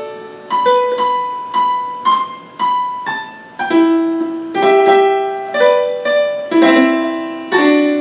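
Software piano notes from an air-piano app, triggered by fingers tapping in the air over a Leap Motion controller. A slow melody of about two notes a second, mixing single notes and chords, each ringing and fading.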